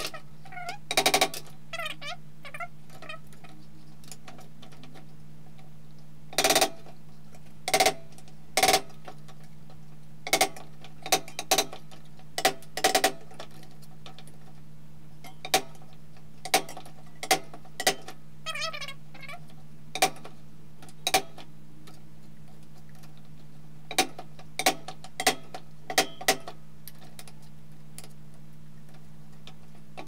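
Light taps of a small hammer on a stainless steel sheet held in a bench vise, bending its cut petals: single sharp taps and short clusters at irregular intervals. A steady low hum runs underneath.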